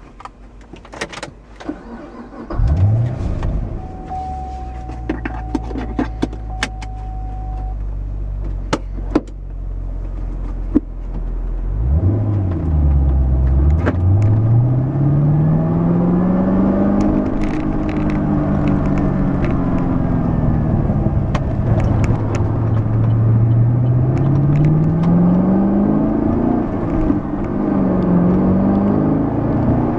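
Keys jingle, then the 2011 Camaro SS's 6.2-litre LS3 V8 cranks and fires about two and a half seconds in, flaring up and settling into a steady idle heard from inside the cabin. A steady tone sounds for a few seconds. From about twelve seconds in, the V8 pulls away and its revs rise and fall with the throttle and the gear changes of the manual gearbox.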